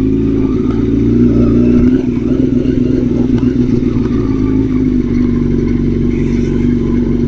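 Yamaha R6 sport bike's inline-four engine running at steady revs while riding, with an even, unchanging pitch.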